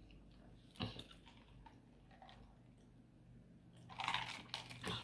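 Faint, close-miked chewing and wet mouth sounds of someone eating chicken enchiladas, with a single click about a second in and a louder spell of chewing near the end.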